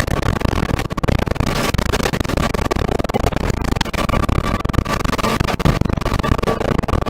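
Tornado winds rushing past a house: a loud, rough wall of noise with rapid crackling hits and a steady high whistle running through it, which drops away for a couple of seconds in the middle and comes back.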